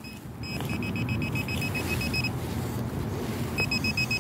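Metal detecting pinpointer probe beeping rapidly, about eight short high beeps a second, as it is worked in the dig hole over a buried metal target. The beeping stops about two seconds in and starts again near the end.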